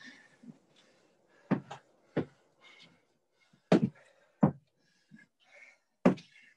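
Feet thudding on the gym floor during reverse lunge knee drives, the thuds coming in pairs about every two seconds as each foot steps back and returns, with short exhales between.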